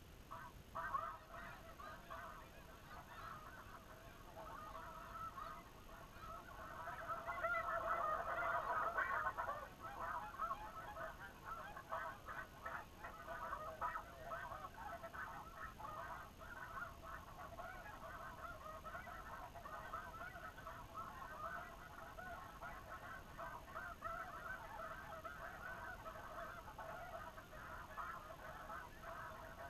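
Snow geese calling, a dense, continuous clamor of many overlapping honks and yelps that swells louder about seven seconds in, then settles back.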